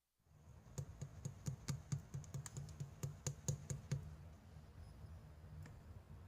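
Slime being pressed and poked by hand, giving a run of sharp clicks and pops, about four a second, that stops about four seconds in.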